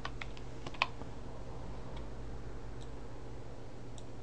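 A few computer keyboard keystrokes in the first second, then a steady low hum with a couple of faint clicks.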